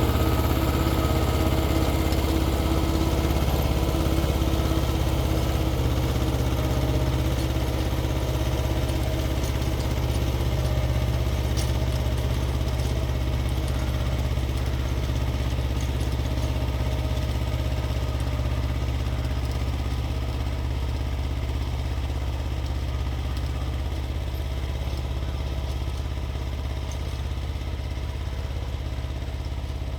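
Xingtai 220 compact tractor's diesel engine running steadily while driving a 1.3 m rotary tiller, slowly getting quieter.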